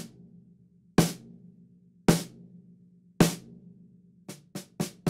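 14x6.5 PDP Concept maple snare drum with wood hoops and a coated Remo Ambassador head tuned medium-low, damped with taped-on paper handkerchiefs to kill the head's ring, giving a dry snare sound. It is struck with sticks four times about a second apart, then in a quicker run of strokes near the end.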